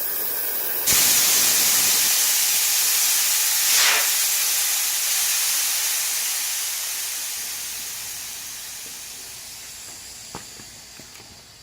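Compressed air hissing out of an old air compressor. The hiss jumps suddenly louder about a second in, then fades steadily as the pressure drops. A single click sounds near the end.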